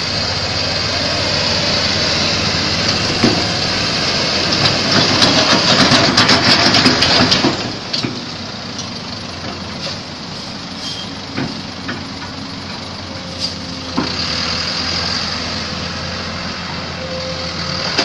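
Dump truck's engine running under load as the truck drives through a shallow muddy river. It grows louder for a few seconds about a quarter of the way in, then eases back to a steady run.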